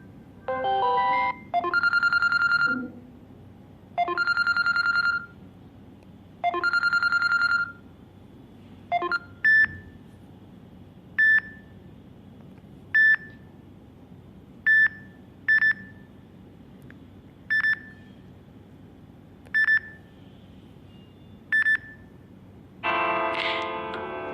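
Samsung Galaxy J4+ smartphone playing its stock ringtones in turn. First comes a short melodic phrase, then three one-second electronic tones about two and a half seconds apart, then a run of short high beeps at uneven spacing, and a new melodic ringtone starts near the end.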